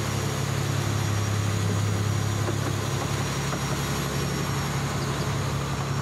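A boat's engine running with a steady low drone under the rush and splash of choppy waves breaking along the hull.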